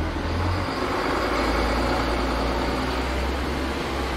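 A motor vehicle with a low engine rumble passing close by in the street, its noise swelling about a second in and easing near the end.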